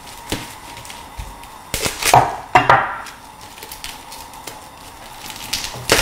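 A napa cabbage being handled on a wooden cutting board: a few light knocks, then two louder rustling scrapes about two to three seconds in as its foam-net and plastic wrapping is pulled off.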